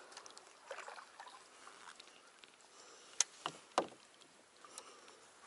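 Kayak paddle strokes: faint swishing and dripping of the blades in the water, with two sharp knocks a little after three seconds in, about half a second apart.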